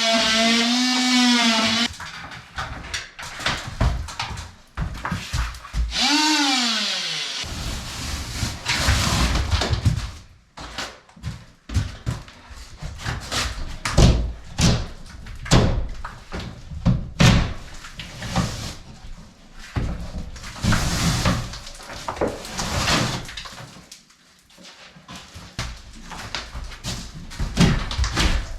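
A dog whines twice: a wavering whine, then a short falling one. After that comes a long run of irregular knocks and thuds.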